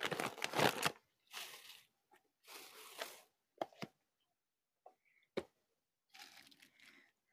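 Plastic grocery bags rustling in several short bursts as groceries are unpacked, the loudest in the first second, with a few sharp knocks of items set down on a counter.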